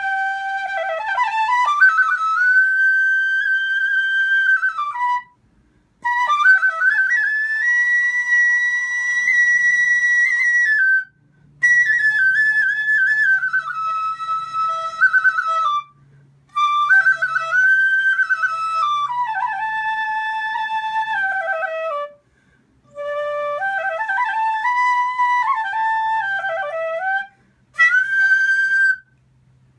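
Nepali bansuri, a bamboo side-blown flute, playing a solo melody in six phrases with short breaks between them, the notes sliding up and down and ornamented with quick turns.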